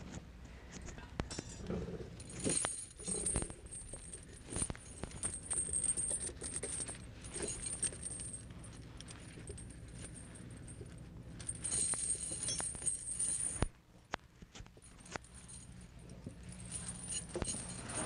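Steel tire chains on a semi-truck's tires jangling and clinking as the rail hooks are undone by hand, in several bursts of rattling with single clicks between them, over a steady low hum.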